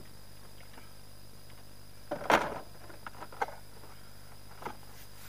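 Brief rustling scrape about two seconds in, then a few light sharp clicks: someone handling gear close to the microphone.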